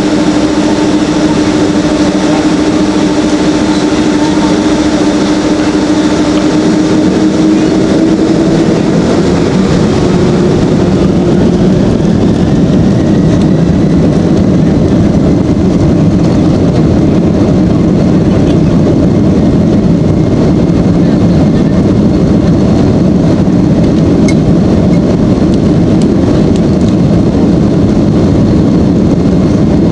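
Boeing 767-300ER jet engines heard inside the cabin over the wing. A steady hum gives way about eight seconds in to a fuller roar, with a whine rising in pitch as the engines spool up to takeoff thrust.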